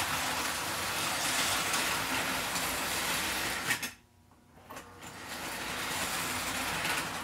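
American Flyer toy train diesel locomotive running around the track, its motor whirring and wheels rolling on the rails. Just before four seconds in, the power drops and it falls almost silent. It then starts up again and builds back to the same running noise as the two-position reverse unit, freed up with CRC 2-26, sends it the other way.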